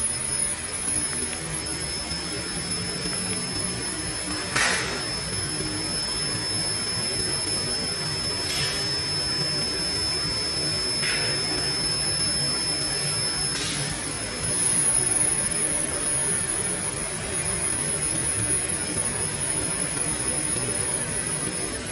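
Vacuum cleaner running steadily with a thin high whine, with a few short crackles about five, nine, eleven and fourteen seconds in.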